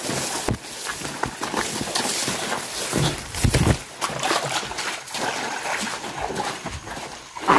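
Footsteps of several people splashing and scuffing through a shallow, rocky stream bed, in irregular steps over a steady hiss of running water.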